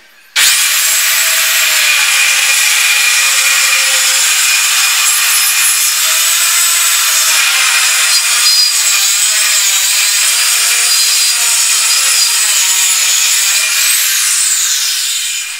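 Handheld electric circular saw starting suddenly and ripping a long, steady cut through plywood. Near the end the cut finishes and the motor winds down with a falling whine.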